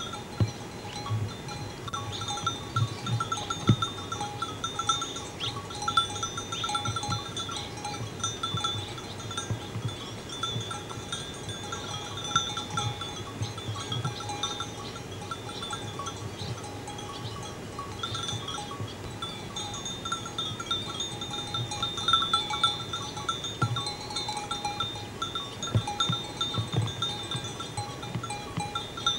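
Many sheep bells tinkling and clinking at once, without pause, as a flock grazes.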